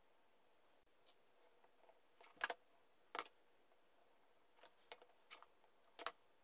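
A handful of light, sharp clicks and taps of small wooden toy parts being handled, as a wheel is fitted onto its wooden axle; the strongest come about two and a half seconds in, just after three seconds, and near the end.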